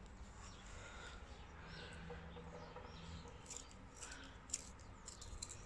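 Faint bird chirps in the background, with a few soft small clicks in the second half.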